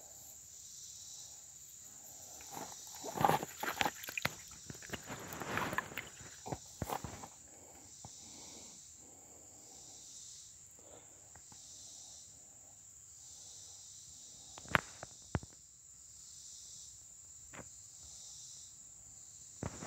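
Steady insect chorus, a high-pitched drone that pulses gently, with close rustling and clicks about three to seven seconds in and a few sharp clicks near the end.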